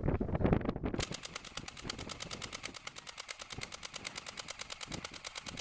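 Airsoft rifle firing on full auto: a fast, even rattle of about ten shots a second, louder and less regular in the first second, then running steadily.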